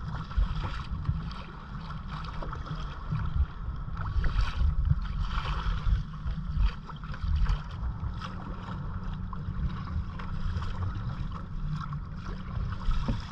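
Kayak paddles dipping and splashing in the water at uneven intervals, over a steady rumble of wind buffeting the microphone.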